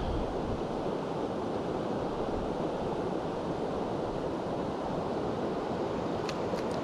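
Steady rushing of river water, an even noise with no change, with a few light clicks near the end.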